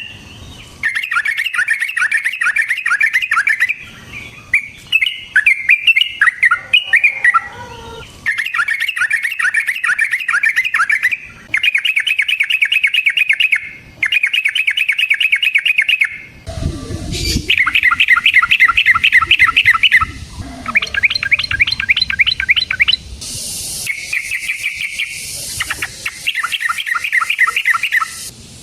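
Yellow-vented bulbul (trucukan) singing long, rapid rolling phrases of repeated chattering notes, each burst lasting two to three seconds with short pauses between. A brief low thump comes about two-thirds of the way through.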